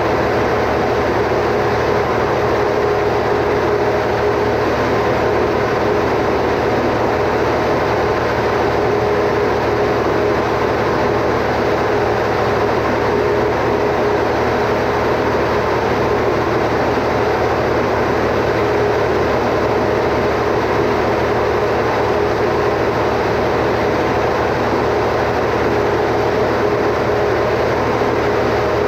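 Standby generator's engine running steadily at constant speed, with an unchanging hum.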